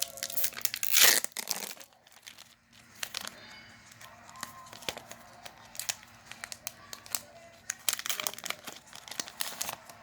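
Foil wrapper of a Pokémon trading card booster pack being torn open, loudest about a second in, then crinkling and rustling as the wrapper and cards are handled.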